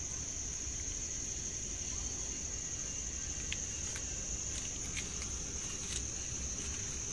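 Insects trilling steadily, a continuous high-pitched drone with no break, along with a few faint clicks.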